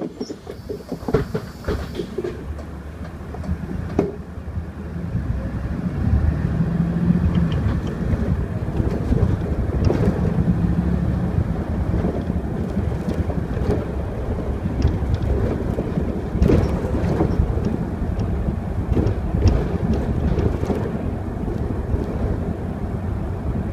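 Mercedes city bus driving, heard from inside: a steady engine and road rumble that grows louder a few seconds in, with a low whine that comes and goes twice and frequent rattles and knocks from the bodywork.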